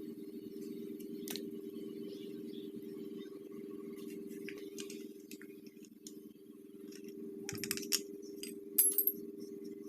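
Small metal parts and tools clicking and clinking, with a few sharp clicks near the end the loudest, over a steady low hum.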